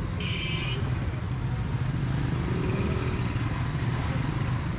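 Street traffic of motorcycles and cars, a steady low engine rumble, with a short high-pitched sound about a quarter of a second in.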